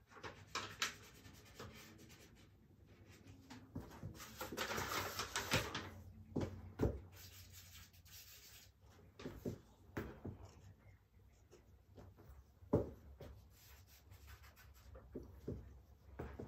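Charcoal scratching and rubbing on drawing paper in short, irregular strokes, with a longer stretch of rubbing about four to six seconds in. Light knocks are scattered throughout.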